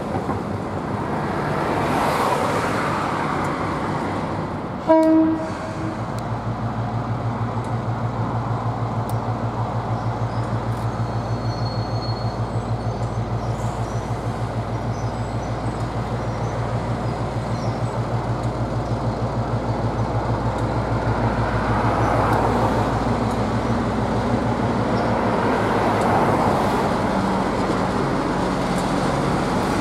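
DC class diesel-electric locomotive with a short horn toot about five seconds in, the loudest moment. After the toot the diesel engine runs with a steady, evenly pulsing low note as the train crosses the bridge.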